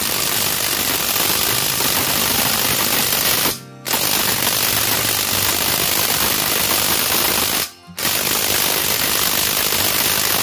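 Dekton 550 cordless impact wrench hammering at its highest setting, driving a large nut tight, in three long bursts with brief trigger releases about a third and three quarters of the way through.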